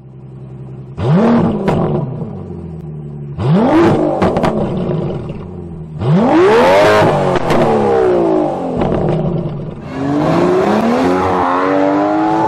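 Aston Martin DBS Superleggera's 5.2-litre twin-turbo V12 blipped three times through its quad exhausts, each rev rising sharply and falling back to idle, the third the highest and longest. From about ten seconds in, the engine pulls steadily higher under acceleration.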